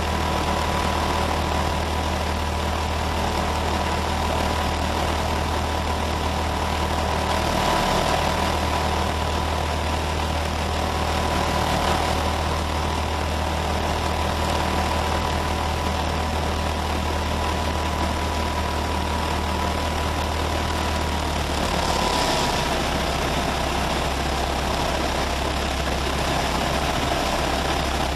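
Diamond HK36 Super Dimona motor glider's piston engine and propeller running with a steady drone. The pitch drops slightly about two-thirds of the way through, a small power reduction.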